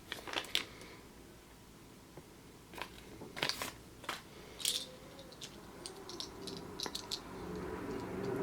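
Scattered light clicks, taps and crinkles of a Kinder Surprise egg being handled: foil wrapping, the plastic toy capsule and small Hot Wheels toy pieces. A softer, fuller rustle builds near the end.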